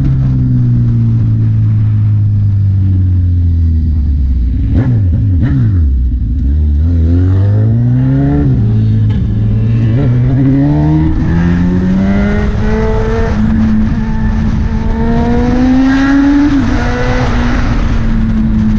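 Honda CB1000R inline-four motorcycle engine running loud under way, its pitch sinking for the first few seconds and then climbing in several rising pulls with short drops between.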